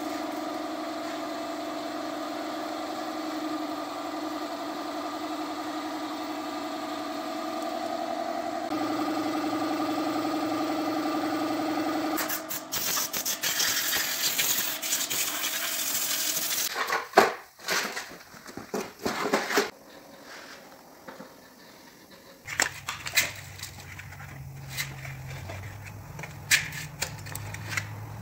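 Steady machine hum, then several seconds of shop compressed air hissing from an air hose, followed by scattered clicks and knocks of hand work on a metal gearbox over a low hum.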